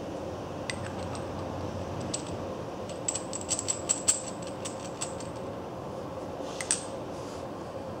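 Steel sleeves and threaded stud of an FD Grip rebar coupler clinking and clicking against each other as they are handled and screwed together: a quick run of light metallic clicks about three to four seconds in, and a couple more near the end, over a steady background hum.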